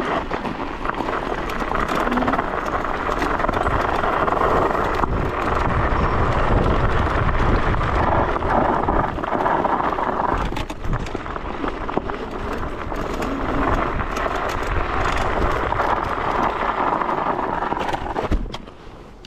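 Steady rushing of wind and tyre noise from an electric scooter being ridden along a track, with a low rumble underneath. It falls away sharply near the end.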